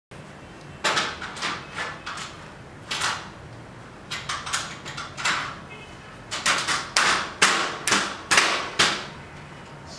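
Irregular sharp knocks of aluminium frame profiles being tapped and pressed together at the corners, as the joints of a fixed-frame projection screen are seated. The knocks come singly and in quick clusters, closer together after about six seconds in.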